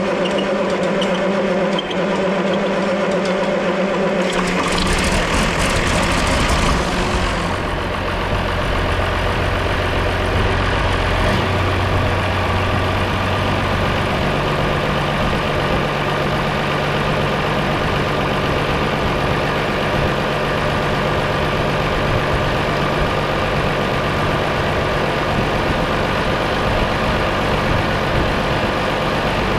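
A few seconds of steady tones, then a John Deere 4840's large diesel engine starts about four seconds in and settles into steady running, its note stepping about 14 s in.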